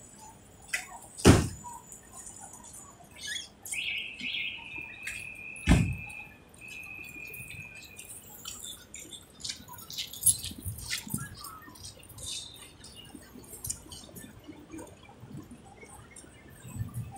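Outdoor street ambience with two sharp knocks, about a second in and about six seconds in, and a steady high-pitched tone that holds for about four seconds from around four seconds in; light clicks and jingles are scattered throughout.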